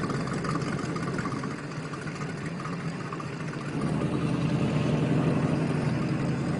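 An engine running steadily at idle, getting louder about four seconds in.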